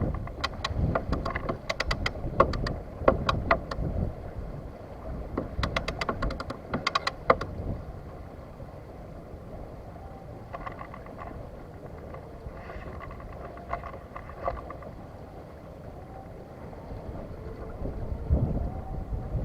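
Wind buffeting the microphone aboard a San Juan 23 sailboat under sail in light wind, with quick runs of sharp clicks through the first several seconds that then give way to a steadier, quieter rush.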